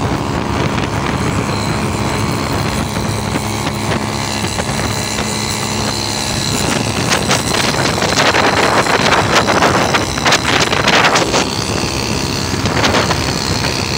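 Motorcycle engine running at speed, with wind rushing over the microphone. The engine's steady note gives way about halfway through to heavy, uneven wind buffeting.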